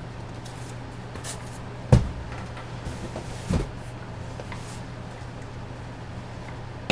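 Two knocks from cardboard card boxes being handled on a table, the louder about two seconds in and a smaller one about a second and a half later, over a steady low hum.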